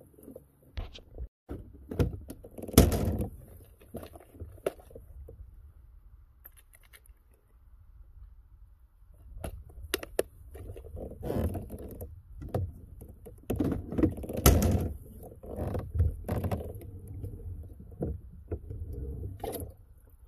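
Fishing gear being handled in a kayak, a tackle box among it: irregular knocks, clunks and small rattles. The loudest knock comes about three seconds in, and another cluster comes around fourteen to fifteen seconds.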